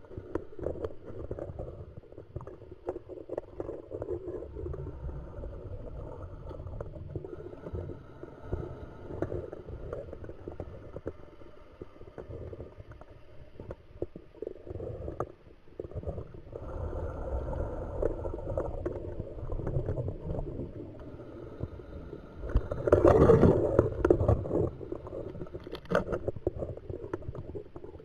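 Muffled underwater sound picked up through a camera housing on a scuba dive: the diver breathing through a regulator, with rushes of exhaled bubbles, the loudest near the end.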